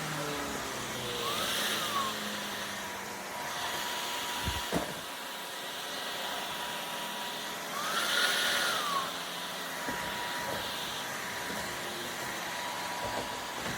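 Shark Detect Clean & Empty cordless stick vacuum running with a steady whine. Twice its pitch rises briefly and falls back, with a louder hiss each time, and there are a couple of knocks about a third of the way in.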